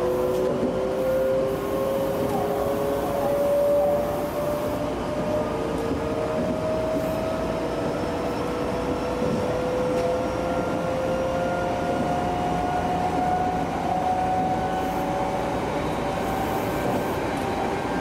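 Meitetsu 2200 series electric train's VVVF inverter and traction motors whining, two tones rising slowly in pitch as the train picks up speed, over steady wheel-on-rail running noise.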